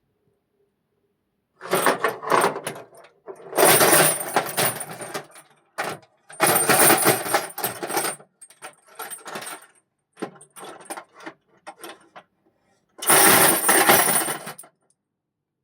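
Steel chain shaken and rattled in repeated bursts of jangling metal clinks. The loudest bursts come about 4, 7 and 13 seconds in, with lighter scattered clinks between.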